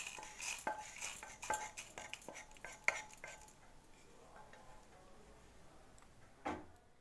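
A spatula scrapes and clatters as dry-roasted dal, dried red chillies and peppercorns are scooped out of a nonstick pan into a steel mixer-grinder jar. A quick run of scrapes and knocks fills the first few seconds, the sound then goes quieter, and there is one louder knock near the end.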